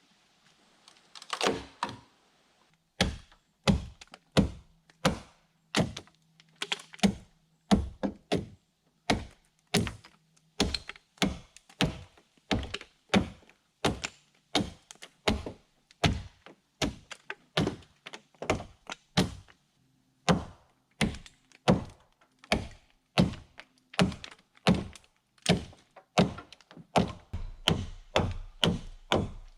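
A hand tool striking wood over and over in a steady rhythm, about one and a half sharp blows a second, as a log is shaped by hand.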